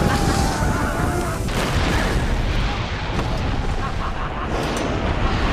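Film battle soundtrack: cannon fire and explosions in a dense, loud mix, with shouting voices over it.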